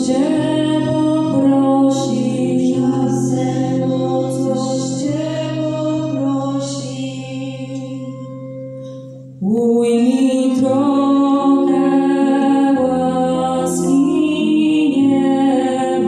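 Live folk band music: accordion, tuba and acoustic guitar with a group of singers. The music fades down to a quiet held chord, then the whole band comes back in at once about nine and a half seconds in.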